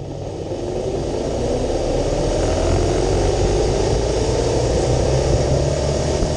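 Zip line trolley's pulleys running along the steel cable, a steady whirr whose whine rises slowly in pitch and grows louder as the rider gathers speed, with rushing wind on the microphone.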